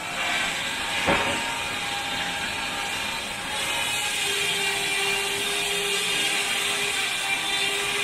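Vintage belt-driven sawmill running off a steam traction engine: a steady mechanical clatter and hiss from the belts, pulleys and saw bench. There is a sharp knock about a second in, and a steady tone joins about four seconds in.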